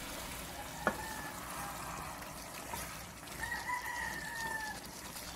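A rooster crowing faintly, one drawn-out call about three and a half seconds in. A single click comes about a second in.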